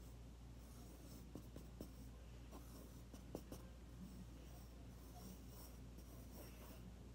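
Faint scratching of a pencil drawing on a spiral-bound notebook page, with a few soft ticks.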